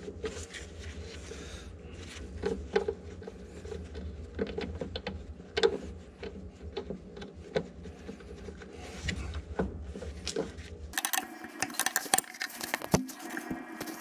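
Hydraulic hose fitting being threaded by hand onto a steel elbow on an electric-over-hydraulic valve: scattered small metal clicks, taps and rubbing, over a low steady hum that stops about eleven seconds in.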